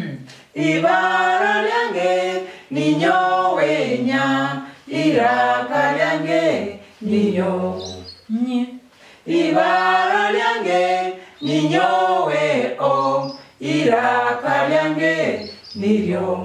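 Small group of adults singing a Runyoro-Rutoro letter-sound song unaccompanied, in short held phrases with brief pauses between them, following the letters pointed out on an alphabet chart.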